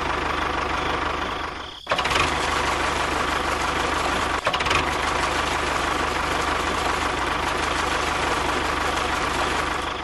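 Tractor engine sound running steadily with a low regular beat, briefly cutting out about two seconds in and again for a moment around four and a half seconds.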